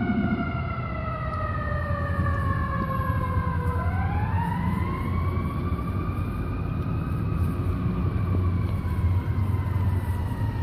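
Fire engine siren on a slow wail: its pitch falls for about four seconds, then rises and falls slowly again. A steady low rumble runs beneath it.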